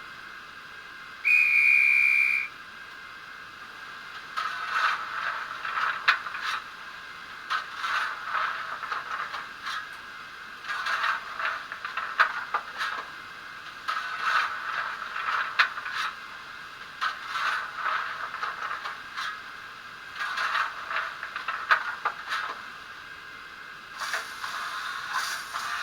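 Sound decoder of a Fleischmann BR52 N-scale steam locomotive playing through its small speaker: a short steam-whistle blast about a second in over a steady steam hiss, then bursts of hissing with clatter about every three seconds.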